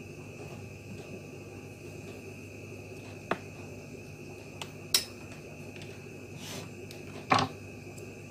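Handling noise of multimeter test leads, alligator clips and a capacitor on a cutting mat: a few small clicks and knocks, the loudest about seven seconds in, over a steady faint high-pitched tone.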